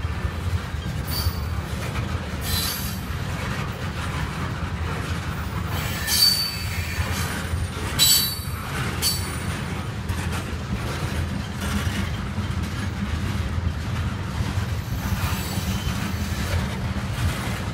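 CSX freight train tank cars rolling past with a steady low rumble of steel wheels on rail. Brief high-pitched wheel squeals break in several times, the loudest about six and eight seconds in.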